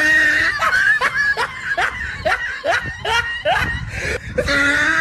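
A person laughing heartily in a rapid string of short ha-ha bursts, about three a second.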